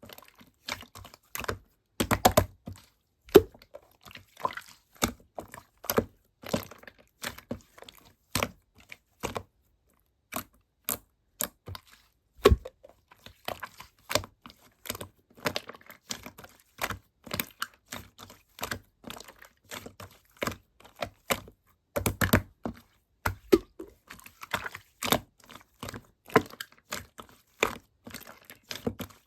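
Hands pressing, poking and squishing slime, giving a fast, irregular run of sharp clicks and pops with brief pauses.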